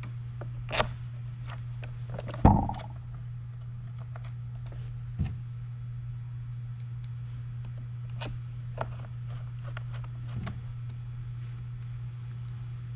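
Scattered knocks and clicks of Onewheel parts being handled and refitted, with one loud thump about two and a half seconds in, over a steady low hum.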